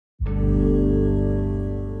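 Intro logo sting: a deep, many-toned chord that strikes a moment in and rings on, slowly fading.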